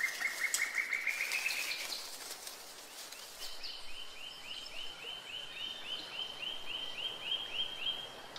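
A bird calling: a quickening run of short notes that climb in pitch over the first two seconds, then, after a pause, a steady series of short high notes at about four a second.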